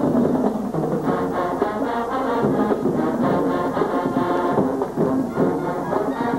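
Marching band playing: brass section carrying the tune over drums keeping a steady beat.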